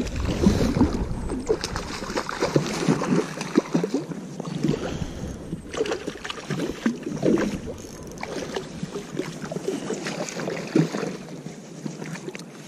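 Hooked trout thrashing at the water's surface as it is fought on rod and line: a run of short, irregular splashes.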